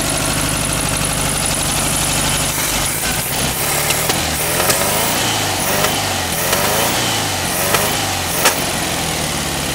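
A 1968 VW Beetle's air-cooled flat-four engine idling on three cylinders. Its speed wavers in the middle, with several sharp snaps. The owner puts the dead cylinder down to a bad spark plug or a bad distributor cap.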